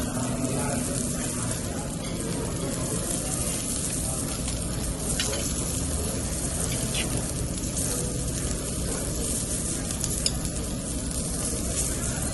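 Beef sizzling on a tabletop grill, a steady crackling hiss, with a few short clicks about five, seven and ten seconds in.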